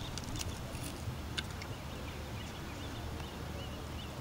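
A couple of sharp clicks as a rusty iron find is pulled off a neodymium fishing magnet, over a steady low rumble, with faint high chirps coming in from about halfway through.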